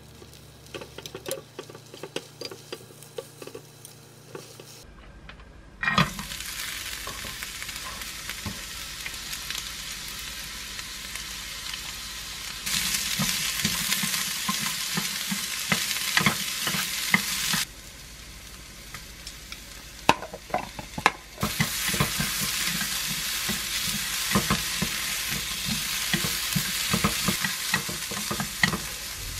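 Wooden chopsticks clicking lightly against a square nonstick egg-roll pan, then, from about six seconds in, julienned carrots sizzling as they are stir-fried, with the chopsticks tapping and scraping the pan. The sizzle gets louder twice, about twelve seconds in and again about twenty-one seconds in.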